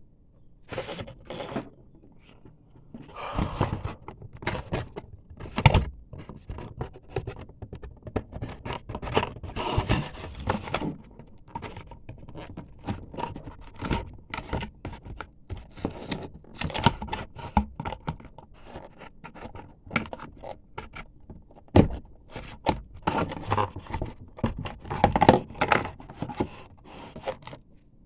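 Handling of packaging and toy soldier figures during an unboxing: irregular scraping, rattling, clicking and knocking, with a few louder thunks.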